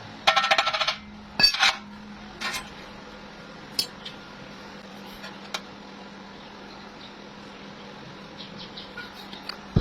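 Metal pieces clinking and clattering as they are handled: a short ringing rattle near the start, then a few separate knocks spread over several seconds, over a steady low hum.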